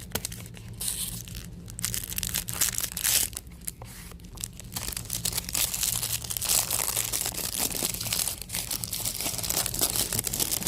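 Packaging crinkling and tearing as a pocket knife is unwrapped: an irregular crackle of small rustles and rips, busier in the second half.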